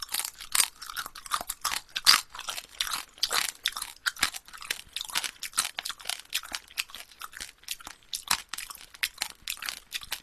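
Close-miked mouth noises of someone chewing a big mouthful of soy-sauce marinated ttak-saeu shrimp: wet chewing with quick, irregular crunches of the shell, several a second.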